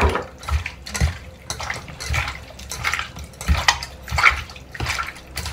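Pieces of pork being squeezed and mixed by hand in a soy sauce marinade in a stainless steel pot: repeated wet squelching, about two squishes a second.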